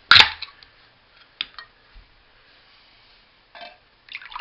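Drink can's ring-pull snapped open with one loud, sharp crack just after the start, followed by a few faint clicks and handling rustles. The drink begins to pour out of the can near the end.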